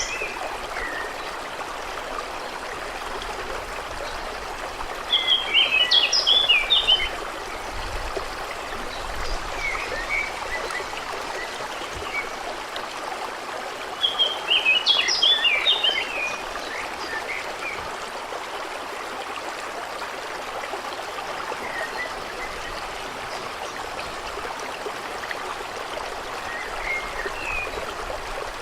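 Small stream babbling steadily, with a songbird singing two bursts of rapid chirping notes, about five seconds in and again about fourteen seconds in, and a few faint bird calls between.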